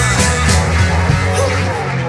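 Electric guitar playing a rock lead with wavering, bending notes over a backing of bass and drums.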